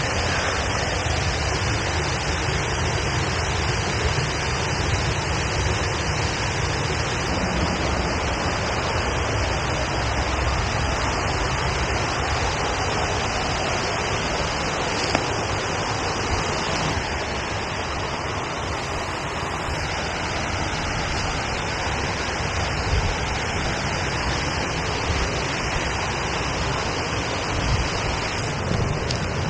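A waterfall's falling water rushing steadily.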